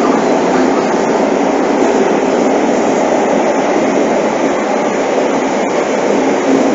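Seibu 6000 series electric train running through a subway tunnel, heard from inside the car: a steady, loud rumble of wheels on rail, with one sharp click near the end.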